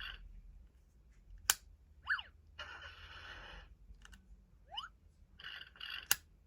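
Electronic sound effects from a VTech Go! Go! Smart Wheels toy police car: quick rising chirps twice, a buzzy burst about a second long in between, and two sharp clicks.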